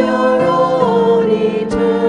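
Congregation singing a slow hymn together with instrumental accompaniment, held notes changing every half-second or so.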